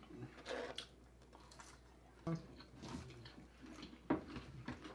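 A person eating close to the microphone: faint chewing with scattered small clicks and smacks of the mouth.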